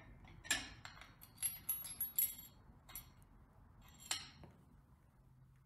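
Small metal pieces clinking and clattering as they are handled: a single clink, then a quick cluster of clinks with a thin high ring, and one last clink.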